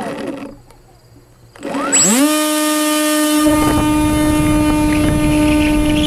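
Electric motor and propeller of a Bixler RC airplane spinning up sharply about two seconds in, then holding a loud, steady high whine at full throttle, heard from a GoPro mounted on the plane. About a second and a half later, wind rushes over the microphone as the plane climbs away in flight.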